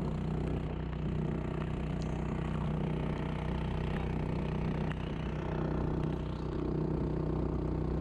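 A motor engine running steadily at an even speed.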